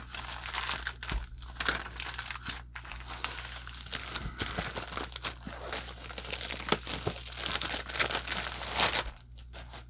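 Plastic poly mailer crinkling and rustling as it is torn open and handled, with some tearing and small crackles; it stops about nine seconds in.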